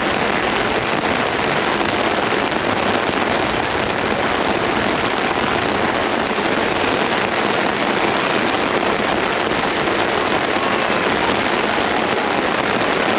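Torrential cloudburst rain pouring down in a dense, steady hiss that does not let up.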